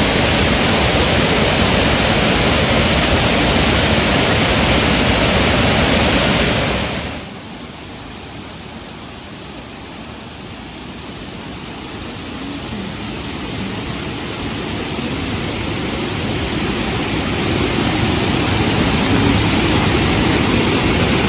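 Waterfall rushing, a loud, even noise; about seven seconds in it drops off sharply, then gradually builds back up over the next ten seconds.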